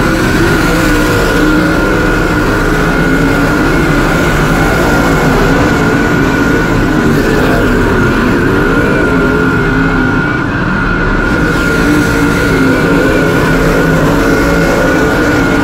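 Dirt late model's V8 engine heard from inside the cockpit at racing speed, loud and continuous, with the pitch wavering as the driver works the throttle through the turns and a steady high whine over it.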